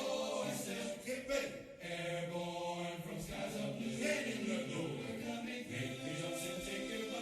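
Background music of choir-like voices chanting in held chords.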